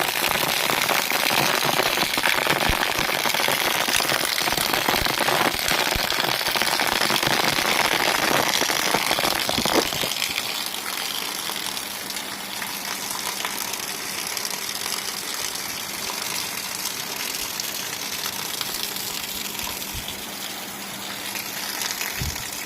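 Heavy rain pouring down in a steady hiss, softer from about ten seconds in, when a faint low hum also comes through.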